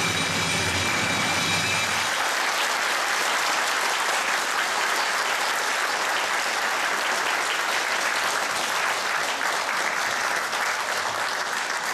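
Audience applauding steadily, over the last notes of the dance music, which end about two seconds in.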